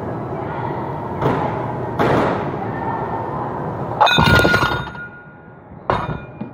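Small iron weight plates set down on the floor: a loud ringing metal clank about four seconds in that dies away over a second, and a second, shorter clank near the end, over steady gym background noise.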